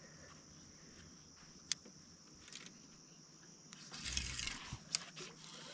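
Insects keep up a steady high drone. A sharp click comes about a second and a half in, and a brief louder rustling burst with a low thump follows near the end.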